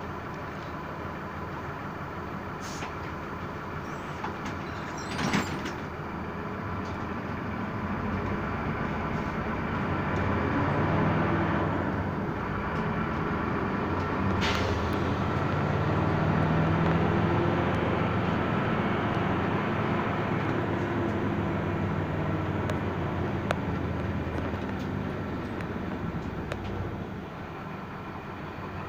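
A motor vehicle running along a city road, heard from inside the cabin: steady engine rumble and road noise. The engine note grows louder through the middle as it accelerates and eases off near the end. There is a short knock about five seconds in.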